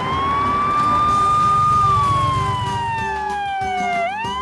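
Ambulance siren in a wail pattern: one long tone that rises, holds, then slowly falls, and sweeps sharply back up near the end.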